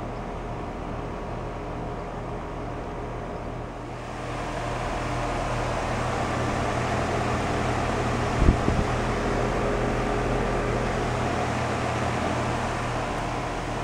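Rheem 049 two-stage air conditioner condensing unit running under load: a steady compressor hum under the rush of its outdoor fan. The fan rush gets louder about four seconds in, and there is a brief knock a little past the middle.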